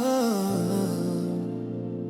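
Slow R&B music with sustained keyboard chords and a wavering melodic glide at the start; a low bass note comes in about half a second in.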